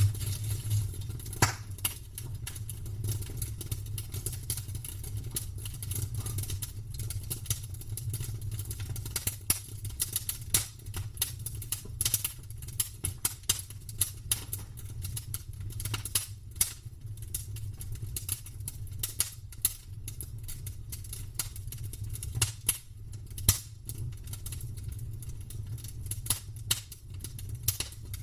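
Campfire wood crackling and popping, with irregular sharp snaps, some louder than others, over a steady low rumble.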